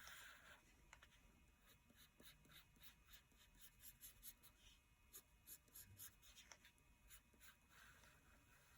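Faint scratchy drawing strokes: many short, quick strokes of a drawing tool sketching lines.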